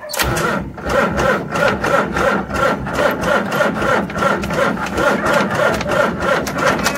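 John Deere 3350 tractor's diesel engine being cranked by its starter motor, a steady rhythmic chugging at about four to five beats a second, turning over without firing: the engine will not start.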